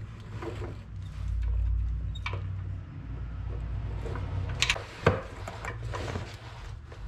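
A wrench working the turbo oil drain line fitting tight, with scattered metal clicks and knocks, the sharpest a little after five seconds in. A steady low hum runs underneath.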